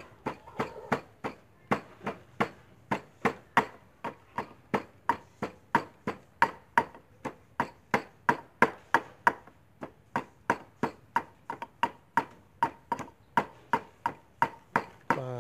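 Wooden pestle pounding sliced lemongrass and aromatics in a mortar into curry paste, a steady run of dull strikes about three a second.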